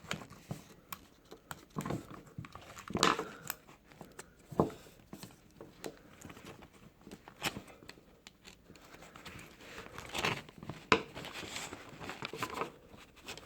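Hands working a car seat belt assembly: irregular rustling of webbing and plastic with scattered sharp clicks and knocks, the loudest about three, four and a half and eleven seconds in, as a part is pressed to pop into place.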